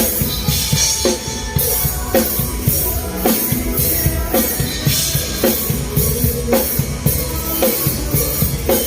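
Drum kit playing a steady rock beat: a snare stroke about once a second over busy bass drum hits, with cymbals ringing throughout.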